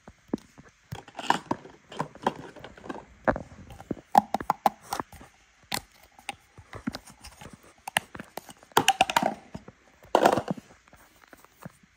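Close-up handling of a small plastic toy bottle with a flip-top cap: scattered clicks and taps with short bursts of rustling.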